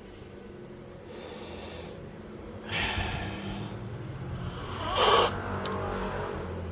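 Espresso machine steam wand hissing in three short bursts over a steady low machine hum, the last and loudest about five seconds in.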